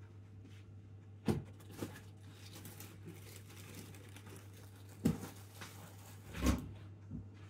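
Shopping being handled and put away in a kitchen: a few sharp knocks and bumps of items set down, the loudest a thud late on, with faint rustling of packaging between them, over a steady low hum.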